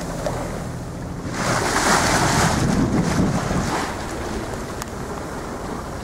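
Wind buffeting the microphone and choppy sea water splashing and rushing around a small boat under way. A louder surge comes about one and a half to four seconds in, over a steady low drone.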